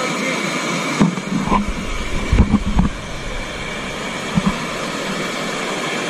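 Waterfall rushing steadily, with a few short low thumps between about one and three seconds in and one more a little past the middle.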